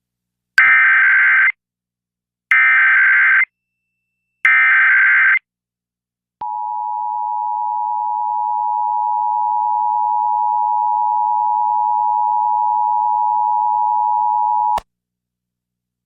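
Emergency Alert System broadcast tones: three short bursts of warbling data tones about a second each, spaced evenly, then the steady two-tone attention signal held for about eight seconds and cutting off sharply. The bursts are the digital alert header, sent three times, that triggers stations' alert equipment, and the two-tone signal marks the start of an alert, here a required monthly test.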